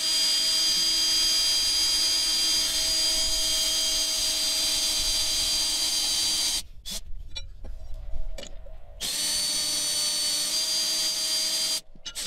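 Electric drill turning a long drill bit into a boat transom of fiberglass over a wooden core, running steadily. It stops about two-thirds of the way in for a couple of seconds, with a few small clicks. It then starts up again, its pitch stepping up slightly, with a brief pause near the end.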